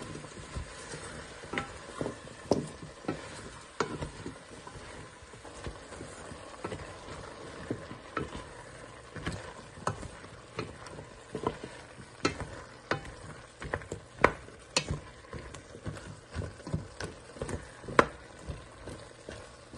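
Wooden spoon stirring chunks of raw vegetables in a stainless steel pot, with irregular knocks and clacks as the spoon and vegetable pieces strike the pot's sides and bottom.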